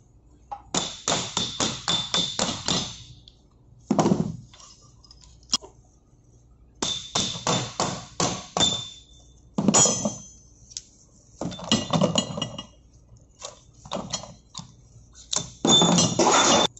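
Metal hammer striking the spanner and union nut of a fuel oil high-pressure pipe to loosen the nut, in quick runs of sharp, ringing metallic blows about four a second, with a few single knocks between the runs.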